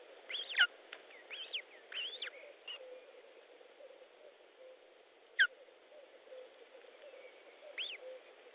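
Osprey calling at the nest with short, sharp whistled chirps that fall in pitch. A quick run of them comes in the first couple of seconds, then single chirps follow later, over a steady hiss.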